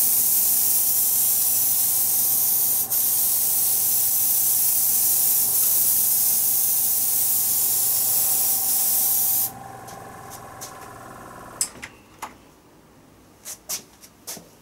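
Airbrush spraying paint: a steady air hiss for about nine and a half seconds that cuts off suddenly, with a steady hum underneath that stops about two seconds later. A few light clicks follow near the end.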